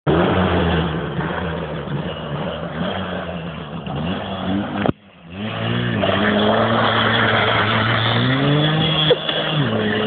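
Small motorcycle engine running hard at high revs, with a sudden break about halfway, then revving up again with a rising pitch and dropping back near the end while the rear tyre is spun in a smoking burnout.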